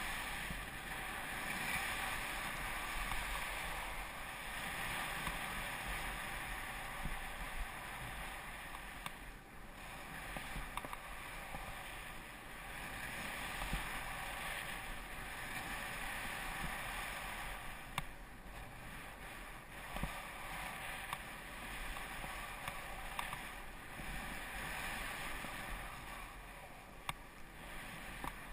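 Steady rushing hiss of skiing fast through powder snow: wind on the camera microphone mixed with skis sliding through the snow, swelling and easing with the turns, with a few faint clicks.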